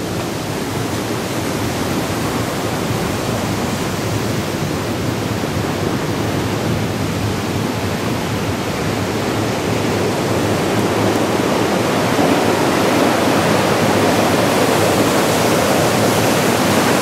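Water rushing through a river weir's sluice gate: a steady rushing that grows louder over the second half.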